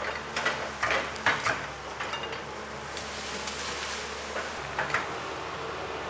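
Tracked excavator's diesel engine running steadily as it clears bush, with a cluster of sharp cracks and knocks in the first two seconds and another about five seconds in.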